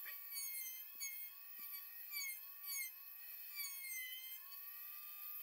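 Faint high-pitched squeaks, mostly gliding down in pitch, repeating roughly every half second over a faint steady hum.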